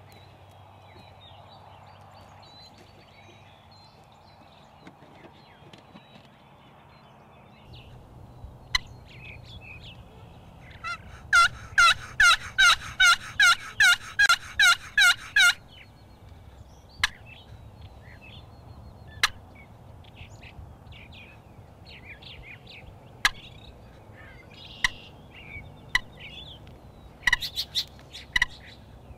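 Wooden turkey box call being run in a series of about ten loud yelps, a little over two a second, imitating a hen turkey calling to draw in a gobbler. Afterwards there are scattered single sharp clicks.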